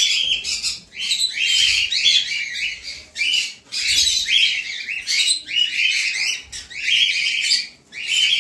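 A flock of caged lovebirds and cockatiels chattering and screeching, a dense high-pitched din that comes in waves with brief breaks; the birds are restless for their morning feed.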